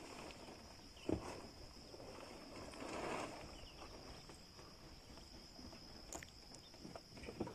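Faint outdoor background with a steady, high-pitched insect buzz. A single knock comes about a second in, and a brief rustle follows around three seconds in.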